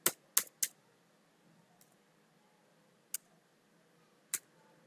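A few isolated keystrokes on a computer keyboard: three in quick succession at the start, then single clicks spaced out over the next few seconds.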